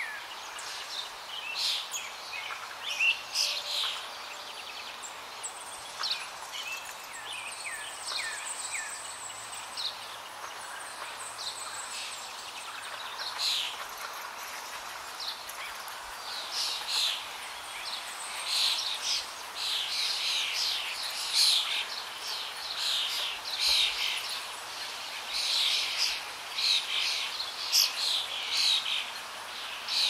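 Natural ambience of steadily flowing water with many small birds chirping and calling over it; the birdsong grows busier about halfway through.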